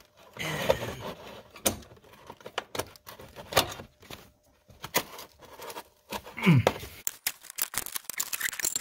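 Hand ratchet clicking in short strokes, with metal tools clinking, as a bolt on the 7.3 Power Stroke turbo's exhaust flange is worked in a tight space. The clicks are uneven at first and come quicker near the end, and a brief falling tone is heard about two-thirds of the way in.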